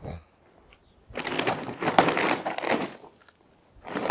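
Windsurf sail's cloth crinkling and rustling as it is unrolled and laid flat on the ground, in a burst of about two seconds starting about a second in, with another starting near the end. Crinkling like this is the sailcloth being stressed, which the sailmaker calls damage to the material.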